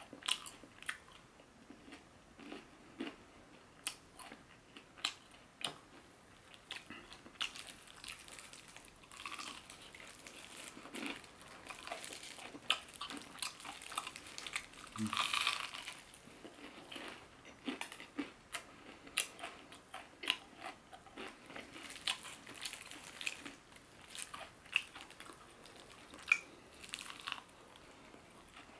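Close-miked biting and chewing of crispy Korean fried chicken: irregular sharp crunches and crackles of the breaded crust, with a longer, louder crunch about halfway through.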